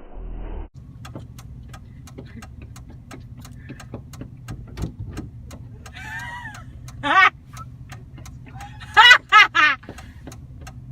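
Car engine idling with a steady low hum, under a regular rapid ticking of about two to three ticks a second. A short high-pitched vocal cry comes about seven seconds in, then three quick ones about nine seconds in.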